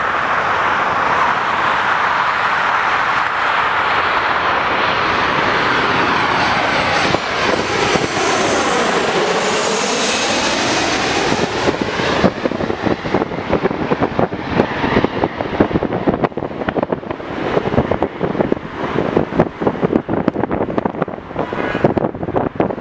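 Boeing 737-800's CFM56-7B turbofan engines at approach power: a loud, steady rush as the jet comes in, with a swooping sweep in tone around nine to ten seconds in as it passes overhead. After that the engine noise thins out and is broken up by gusts of wind buffeting the microphone.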